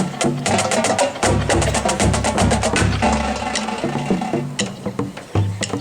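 Marching drumline playing a cadence: snare and tenor drums in quick, sharp strokes, including a fast even run through the middle, over the low pitched notes of the bass drums.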